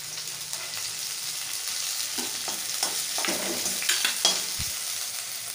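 Chopped capsicum and spring onion sizzling in hot oil in a steel kadai, stirred with a perforated steel spatula that scrapes against the pan several times in the second half, with one dull knock near the end.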